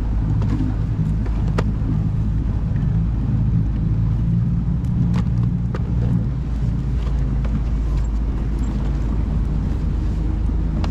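A boat's motor running with a steady low drone, with a few faint sharp clicks over it.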